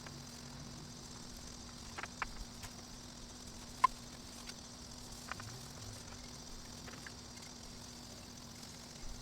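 Faint steady background hum and high hiss with a few light clicks, the sharpest about four seconds in.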